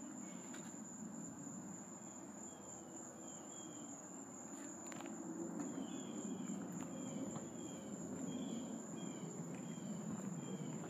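Steady high-pitched insect drone, with a bird's short chirps repeated about twice a second from about two seconds in, and a few footsteps on a wooden boardwalk.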